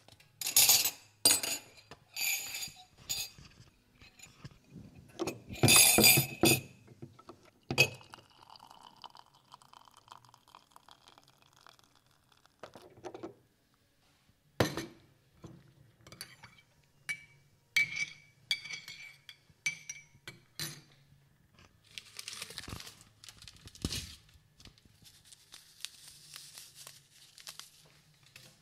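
Tea being made: china cups and dishes clinking and clattering, then hot water poured into a cup with a pitch that rises as it fills. Later a spoon clinks against the cup again and again as it stirs.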